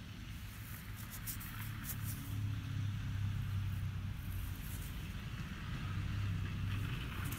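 A low, steady engine hum that grows louder about two seconds in and again near the end, with faint rustles.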